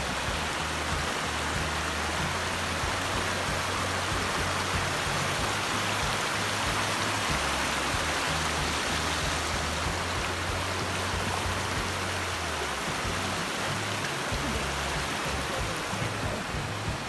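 Glacier-fed mountain stream rushing and splashing over rocks in a steady rush, with background music and its bass notes underneath.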